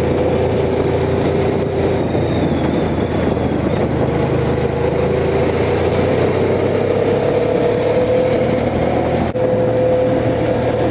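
Honda Crosstourer's V4 engine running while riding, with steady wind rush over the microphone. The engine note climbs slowly through the middle, and there is a brief drop in level near the end.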